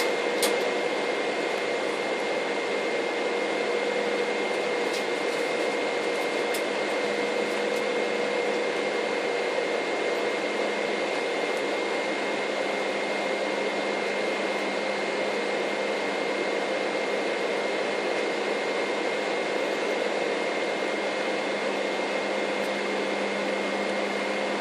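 Steady cabin noise inside an Airbus A318 jet airliner in flight: an even rush of airflow and engine noise with a constant hum and a faint high whine, and a few small clicks in the first seconds.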